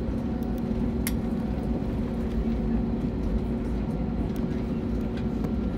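Cabin noise of an Airbus A321 rolling out on the runway after landing: a steady rumble of the engines and the wheels on the runway, with a low hum. A single sharp click about a second in.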